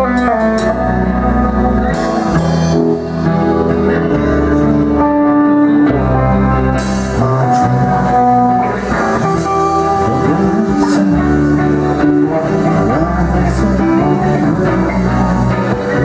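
Rock band playing live: electric guitar to the fore over bass guitar and drums.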